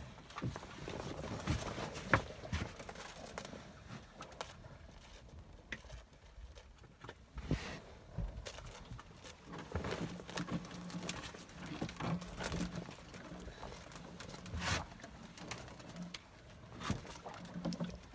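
Fishing handline being hauled in hand over hand in a wooden boat: irregular knocks, clicks and rustles of the line against hands, waterproof apron and gunwale. A low hum comes and goes in the second half.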